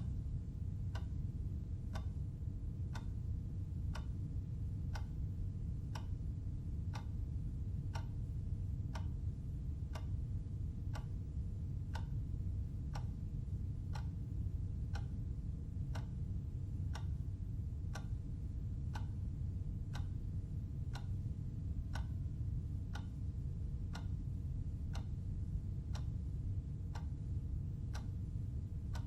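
A clock ticking steadily about once a second, over a steady low hum.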